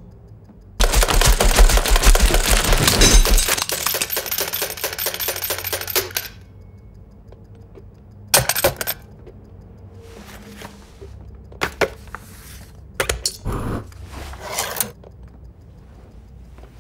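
A fast, dense rattle of stapling strikes for about five seconds, like machine-gun fire. Then a heavy-duty desk stapler is struck a few times about eight seconds in, followed by scattered clicks and scrapes as the stapler is handled and opened.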